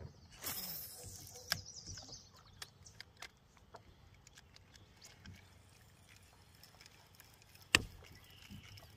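Water splashing briefly near the start, then quiet with scattered small clicks and knocks around the paddle boat, and one sharp knock near the end.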